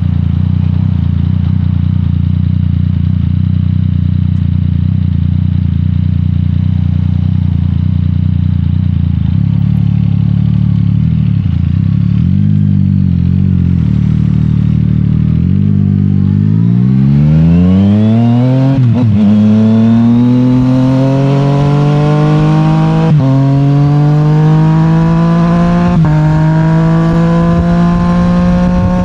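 Yamaha MT-09's 890 cc CP3 inline three-cylinder engine through an Akrapovic full titanium exhaust, running steadily at low revs for about sixteen seconds with a few small wobbles in pitch. It then pulls away hard, the pitch climbing and dropping at three quick upshifts.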